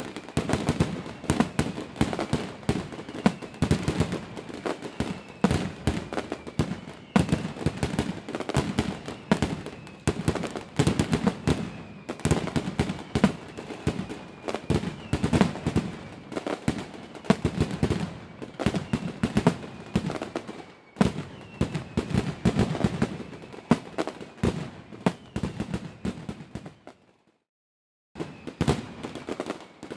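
Fireworks going off in rapid succession, a dense barrage of bangs and crackling. Near the end the sound cuts out completely for about a second, then the bangs resume.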